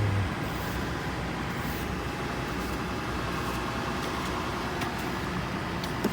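A vehicle engine running steadily with a low, even hum, and a couple of faint ticks near the end.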